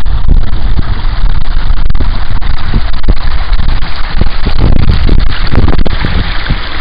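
Wind buffeting the microphone in gusts, over the steady rush of brook water spilling through a small concrete weir.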